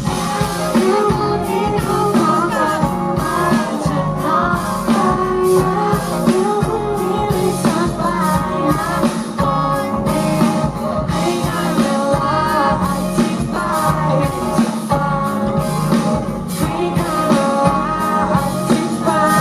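Live band performing a Thai pop-rock song, with a steady drum beat under guitar and a wavering melody line.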